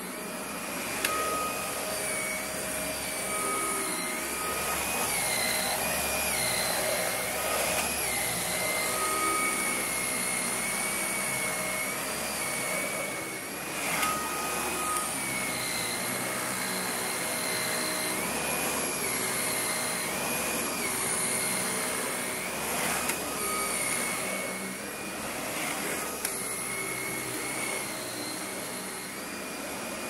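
Dyson cordless stick vacuum running on thick carpet, a steady high motor whine that wavers slightly in pitch as it works, with a few brief sharp ticks.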